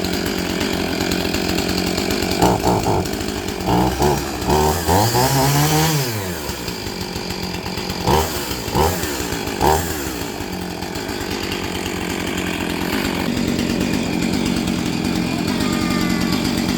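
Husqvarna 450e two-stroke chainsaw running, blipped up to high revs several times in short bursts, with one longer rev that climbs and falls back, between stretches of steady low running. This is the test run after the guide bar and chain were replaced and tensioned.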